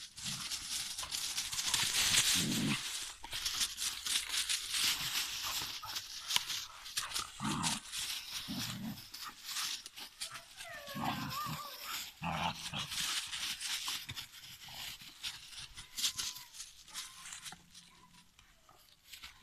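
Dry fallen leaves rustling and crunching as Hungarian Vizsla puppies run and tumble through them, with a few short low dog vocalizations and a brief wavering whine about halfway through. The rustling is busiest in the first half and thins out near the end.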